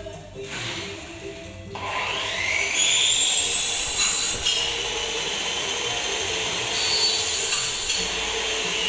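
Handheld electric power tool spinning up with a rising whine about two seconds in, then running steadily at high speed while working aluminium window-frame profiles.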